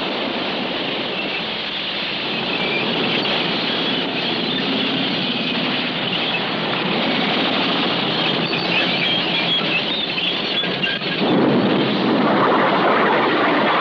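Heavy vehicles running: a steady noisy din that grows louder and fuller about eleven seconds in.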